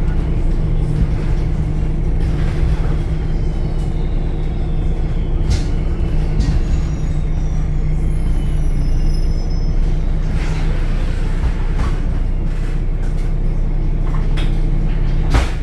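Temsa Avenue LF city bus with its DAF Euro 5 diesel engine running steadily with a low drone, with a few faint high whistles in the middle and one sharp, loud click near the end.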